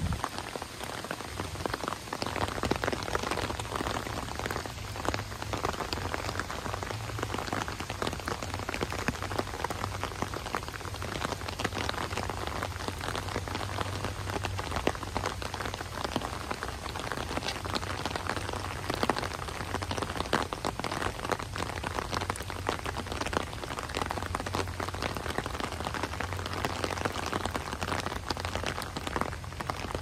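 Steady rain pattering on an umbrella overhead: a dense, even crackle of individual drops hitting the canopy, with a low steady rumble underneath.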